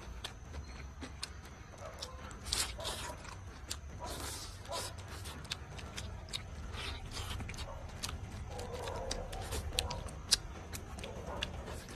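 Close-up eating sounds: a man chewing a mouthful of roast chicken and sausage, with many short wet clicks and lip-smacks and a few brief breathy slurps, over a low rumble.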